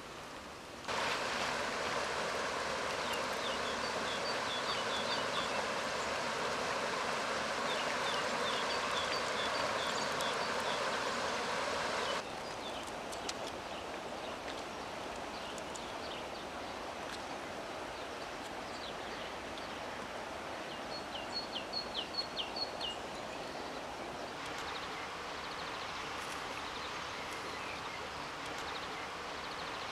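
River water running over a gravel bed: a steady rush that jumps up about a second in and drops to a quieter level about twelve seconds in. A small bird calls several times in quick runs of short, high notes; the loudest run comes about twenty-one seconds in.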